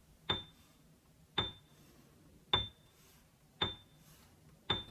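A light clinking tick repeated five times at an even pace, about one a second, each with a brief high ring. It is a pacing sound effect filling the pause.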